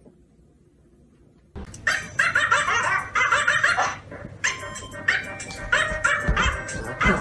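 Dog barking and yipping with music playing alongside, starting suddenly about one and a half seconds in after a near-silent start.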